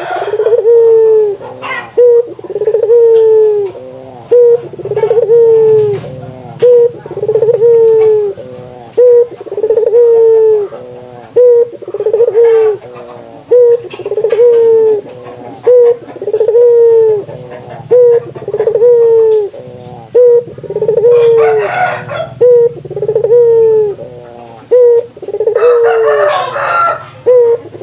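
Barbary dove (burung puter) cooing steadily: a short note followed by a long, falling coo, repeated about every two seconds. A scratchy noise sounds twice near the end.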